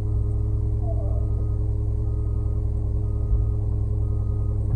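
Concrete mixer truck's diesel engine running steadily at a constant speed while the truck holds in place at the pour. A faint short beep repeats about once a second.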